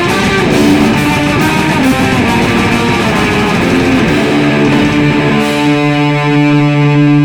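Heavily distorted electric guitar and drum kit playing raw black metal; about four seconds in the drums stop and the guitar holds one sustained, ringing chord.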